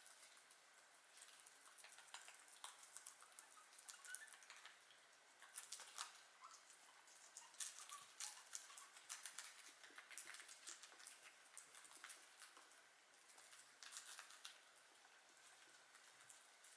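Guinea pigs chewing vegetables, faint: a steady run of quick, irregular crunches and clicks, thicker in a few short spells.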